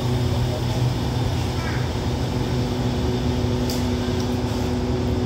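Passenger train standing at the platform with its machinery running: a steady low mechanical hum with a fixed pitched tone. A brief sharp high noise cuts in a little past the middle.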